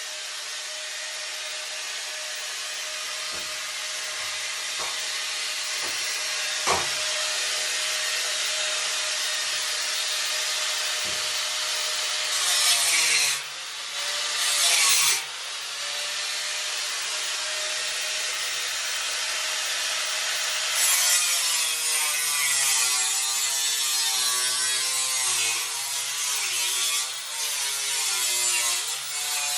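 Power tool, most likely an angle grinder with a cut-off wheel, running steadily and cutting into the steel of a tractor frame. Its motor pitch sags twice with bursts of harsher cutting noise, and from about two-thirds through it wavers up and down as the tool is worked through the cut.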